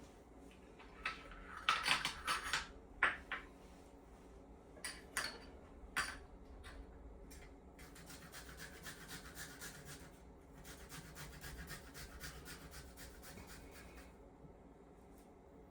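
Kitchen utensils knocking and clattering for several seconds, then a steady, rapid scraping of food being rubbed against a hand grater that fades out near the end.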